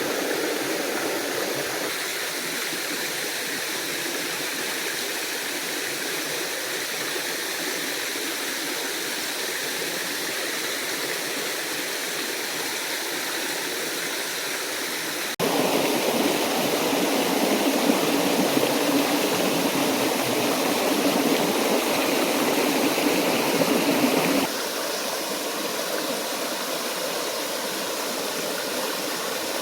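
Steady rushing of water from a small forest stream and waterfall. It jumps abruptly louder and fuller about halfway through and drops back just as suddenly a few seconds before the end.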